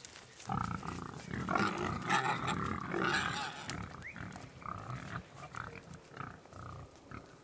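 A group of pigs grunting and squealing at feeding time, busiest in the first half and tailing off toward the end.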